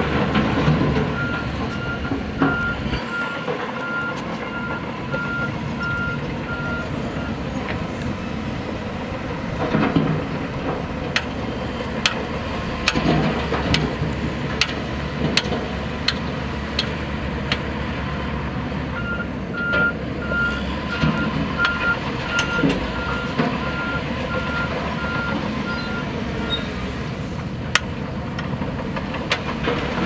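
Heavy earthmoving machinery running, with a reversing alarm beeping about twice a second in two spells: the first from about a second in to seven seconds, the second from about nineteen to twenty-six seconds in. Scattered sharp knocks come through mid-way.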